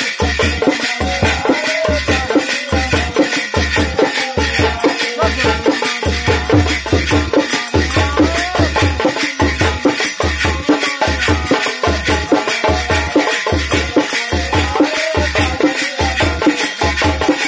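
Men singing a Holi folk song together over a steady dholak beat, with a shaken hand rattle and jingling small cymbals keeping time.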